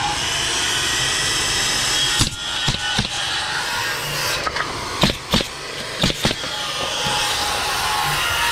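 Pneumatic coil framing nailer firing about six sharp shots into pine blocking, some in quick pairs, over a steady hiss.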